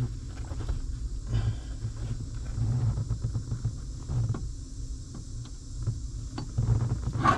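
Handling noise of hands working under a vehicle dashboard: scattered light knocks, clicks and scrapes over a low rumble, the loudest knock near the end.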